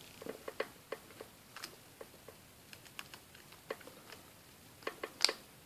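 Flathead screwdriver turning a brass terminal screw in a plastic UK mains plug, tightening it down on the wire: faint, irregular little clicks and ticks, with a sharper click about five seconds in.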